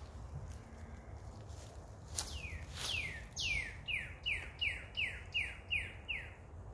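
A songbird singing a string of clear downslurred whistles: a few spaced notes, then a quick run of about seven, roughly three a second.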